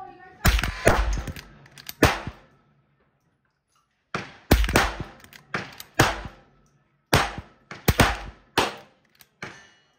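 Henry lever-action .22 rifle firing Federal 36-grain rounds at steel targets: a string of sharp, short cracks in quick clusters, with a pause of about a second a few seconds in.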